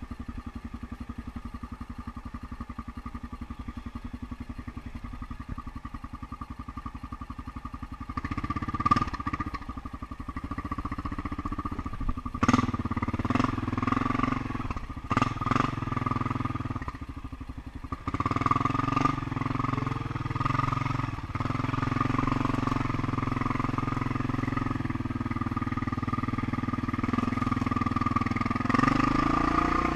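ATV engine running steadily at low speed, then speeding up about eight seconds in and working harder, with several sharp knocks through the middle stretch.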